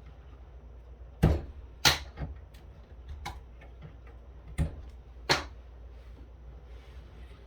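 Hard clicks and knocks of parts being handled during the teardown of a KVM switch: two pairs of sharp knocks, each pair under a second apart, with lighter ticks between them.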